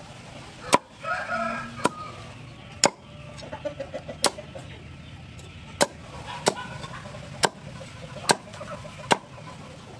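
Knife chopping down through crispy fried pork belly onto a wooden cutting board: about nine sharp knocks, roughly one a second. A chicken clucks in the background, loudest about a second in, with fainter calls later.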